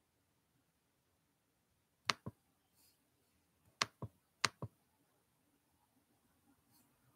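Three pairs of sharp clicks in near silence, about two, four and four and a half seconds in; in each pair a crisp click is followed a fifth of a second later by a softer, duller one.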